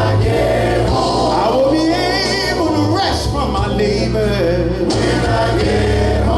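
Gospel music: a choir and a male lead voice singing over a steady bass accompaniment.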